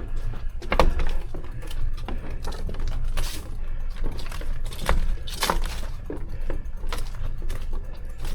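An e-bike rattling and clunking over rough ground, with scattered sharp knocks, the strongest about a second in and near the middle, over a steady low wind rumble on the microphone.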